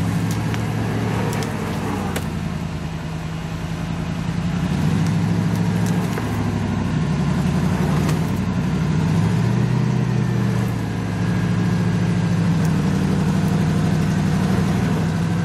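Off-road 4x4's engine running under varying throttle, its pitch and loudness rising and falling, with a few sharp knocks along the way.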